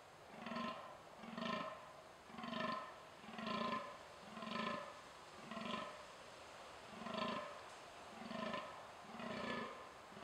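Fallow deer buck giving its rutting groan: short, deep calls repeated about once a second, nine in all, with a slightly longer pause about six seconds in.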